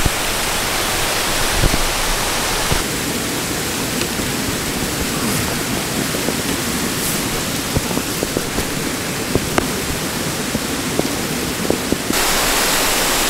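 Steady rush of Beaver Brook's cascades, a mountain stream running down the steep slope, with a few light taps over it; the rushing gets a little louder about twelve seconds in.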